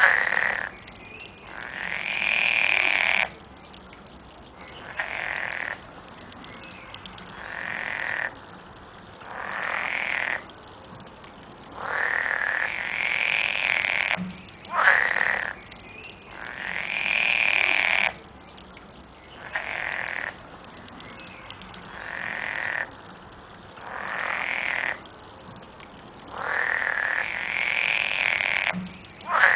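Water frogs (Pelophylax, the Dutch 'groene kikker') croaking, with their paired vocal sacs puffed out at the mouth corners. About a dozen calls, each lasting one to two seconds, follow one another with short pauses.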